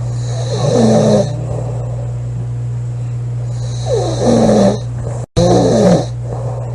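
A woman snoring loudly in her sleep: three rasping snores, about a second in, around four seconds and just before six seconds. A steady low hum runs underneath.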